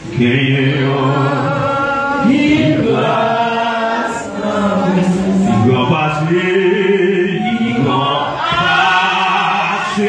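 Voices singing a slow worship chant together, in held phrases of about two seconds each.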